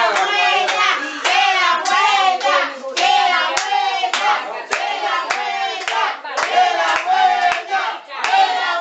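A crowd clapping in a steady rhythm, about two claps a second, with many voices chanting and shouting over the claps.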